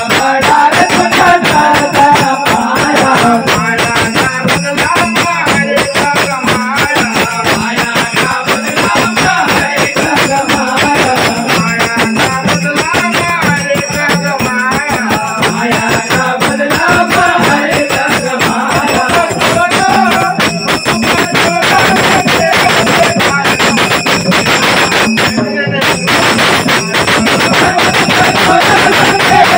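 Nimadi garbi devotional folk song: a sung melody over continuous mridang drumming and jingling hand percussion.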